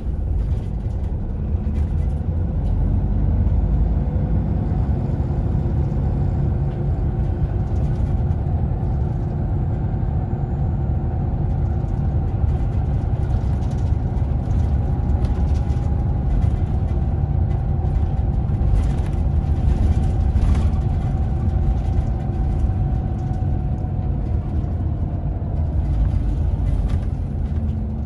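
Scania Irizar Intercentury coach-bus heard from inside the passenger cabin while driving: a steady low engine and road rumble, with a faint whine that rises a little and then falls back in the second half, and a few light clicks and rattles.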